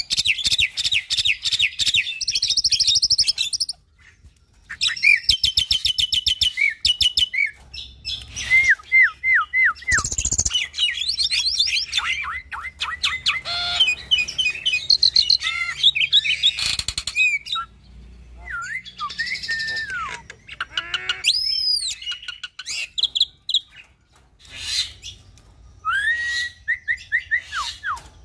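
Caged hybrid myna (Nias hill myna × Asian pied starling cross) in full song: a varied string of fast trills and rattles, runs of short down-slurred whistles and one high arching whistle about three-quarters of the way through, broken by short pauses.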